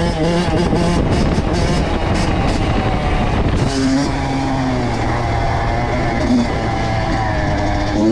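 Kawasaki KX85 two-stroke dirt bike engine running, its pitch wavering up and down with the throttle.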